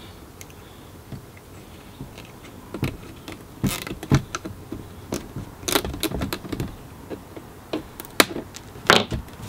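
Scattered plastic clicks and scrapes of a zip tie being threaded through a 3D-printed shoulder ring and pulled snug against the costume torso, with sharper clicks from about three seconds in.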